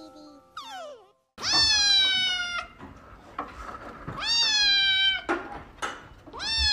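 Grey-and-white kitten meowing: three long, high meows of about a second each, a couple of seconds apart, each starting with a quick upward sweep and then held.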